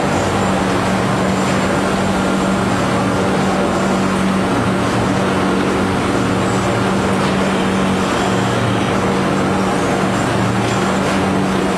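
Corrugated cardboard production line running: a steady, dense machine noise with a constant low hum underneath, from the drives and roller conveyors carrying the board.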